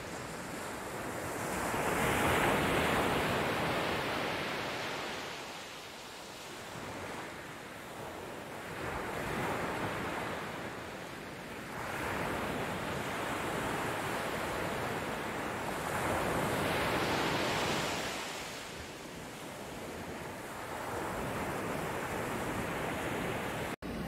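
Sea waves breaking and washing over a rocky shore, the surf swelling and fading in surges every few seconds.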